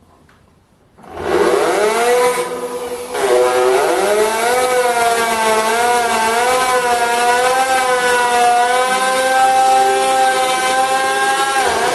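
Electric drill running under load, driving a step drill bit through stainless steel, with a loud whining that wavers in pitch; the owner says the drill's gearbox is dying. It starts about a second in and dips briefly soon after before running on.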